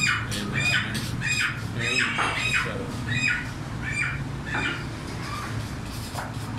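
Birds squawking in a rapid string of short, harsh calls, several a second, thinning out after about five seconds, over a steady low hum.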